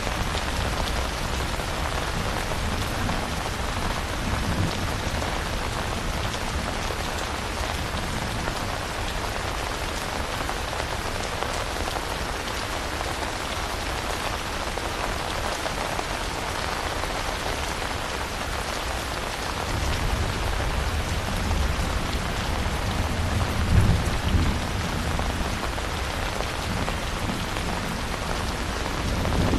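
Steady, heavy rain falling, an even hiss of drops. About two-thirds of the way through, a low rumble of distant thunder swells, peaks and fades.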